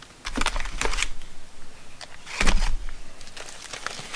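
Small plastic packs of nuts and bolts being handled and sorted: crinkling plastic and clicking hardware, with a heavier thump about two and a half seconds in as a pack is set down.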